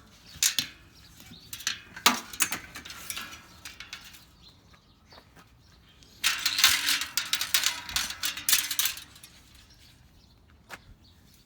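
Clinking and rattling of hard objects being handled, in several bursts; the longest runs from about six to nine seconds in.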